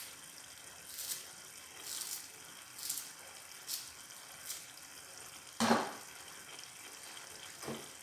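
Radish bhaji simmering in a pot on a gas stove, sputtering in soft hissing bursts about once a second. A sharp thump comes about five and a half seconds in, and a lighter knock near the end.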